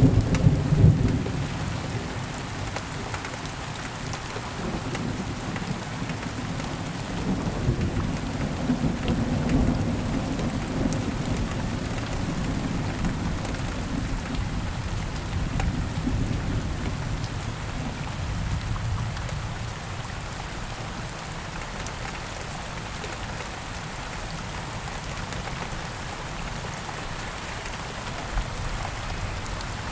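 Thunderstorm: steady rain falling, with a thunder rumble that is loudest in the first second or so and another rolling rumble from about seven to twelve seconds in. The rumbling thins out in the second half, leaving mostly the rain.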